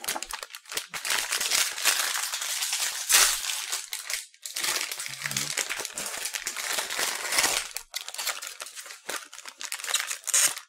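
A plastic candy-kit packet being opened and handled, a dense crinkling and crackling rustle with two short breaks.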